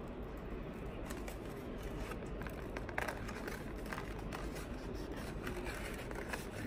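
Black cardboard packaging being handled and pried open by hand: faint rubbing and scraping with a few light taps, over a steady low background hum.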